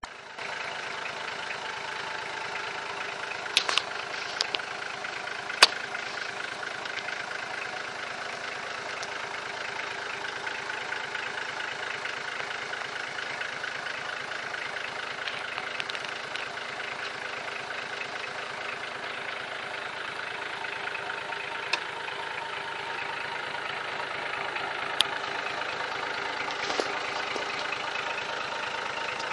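Nissan Patrol 2.8 engine idling steadily, with a few short sharp clicks at scattered moments.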